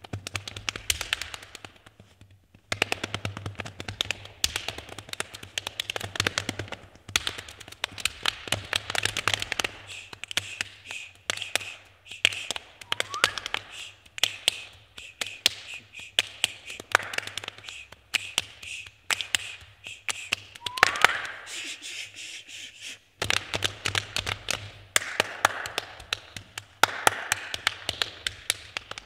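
Body percussion by four players: fast interlocking hand claps and slaps on chest and thighs in a tight rhythm. It stops briefly about two seconds in and again about twenty-three seconds in.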